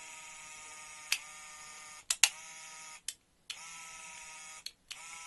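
Small electric motor in a scale-model Lancaster bomber engine nacelle running with a steady whine, driven from a battery pack. The whine cuts out briefly about four times and picks up again, with sharp clicks along the way.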